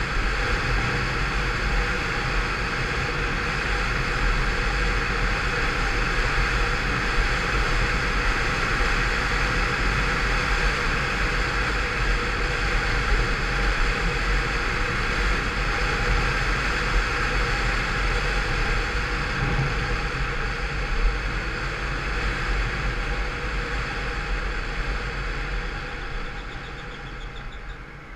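Peugeot Vivacity 50cc scooter, derestricted through its variator and rollers, running steadily at cruising speed, its engine tone mixed with a steady rush of wind and road noise. The sound eases off over the last few seconds as the scooter slows.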